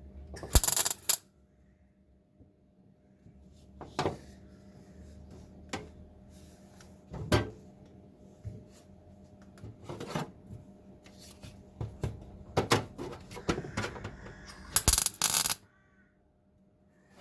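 MIG welder tack-welding a new steel floor pan panel: about six short crackling bursts, each under a second, with a steady low hum and small metallic clicks between them.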